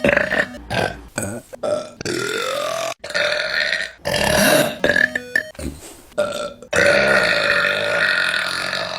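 A quick run of burps from different women, spliced one after another with abrupt cuts: a few short ones, then several long drawn-out ones with a pitched, bending tone, the longest filling the last couple of seconds.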